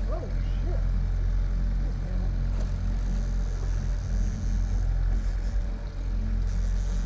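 Steady low drone of a fishing boat's outboard motor running while trolling.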